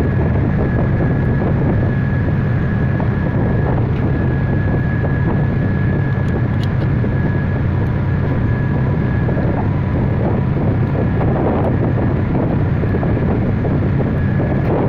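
A steady running drone from an engine or other machine, level throughout, with a faint constant high whine over it.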